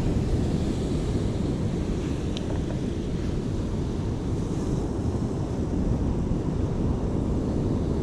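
Steady wind rumble on the microphone over the wash of sea surf, with one brief small click about two and a half seconds in.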